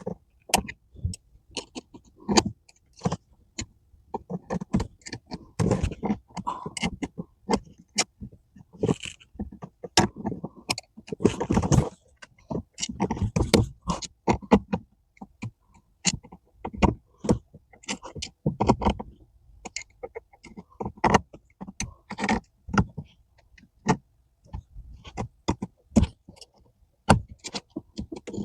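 Irregular clicks, knocks and scrapes of hands working a brake pedal cover over the lip of a car's brake pedal, with bursts of rustling handling noise.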